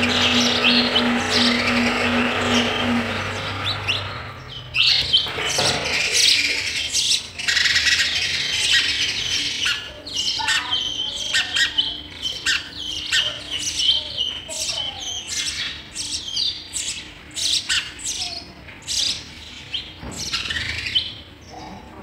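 A steady low drone for the first four seconds or so, then house sparrow chicks chirping in quick, sharp, high calls at the nest while being fed.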